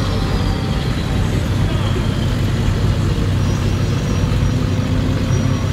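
A lifted pickup truck on oversized wheels driving slowly past, its engine and road noise a steady, deep rumble.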